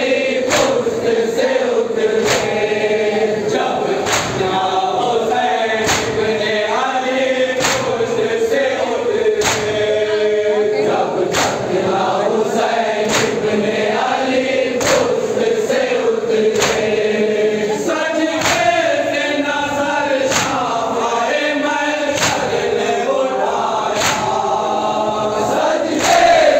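A group of men chanting a noha in unison, with rhythmic chest-beating (matam) slaps landing a little more than once a second throughout.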